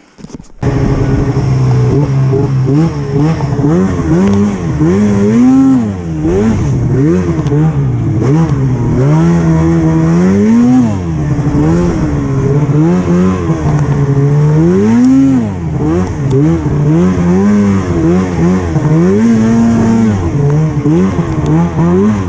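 Two-stroke snowmobile engine revving up and down over and over as the throttle is worked, its pitch climbing and dropping every second or two. Loud, cutting in abruptly about half a second in.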